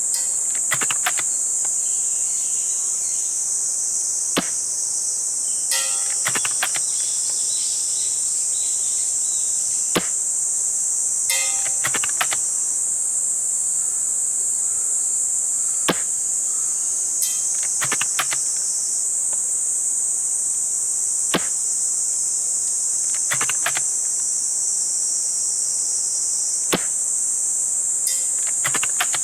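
Customised VSR-10 Pro Sniper spring-powered airsoft rifle fired five times, about one shot every five and a half seconds, each a sharp snap followed about a second later by a short run of clicks. A steady, high-pitched chorus of insects runs underneath.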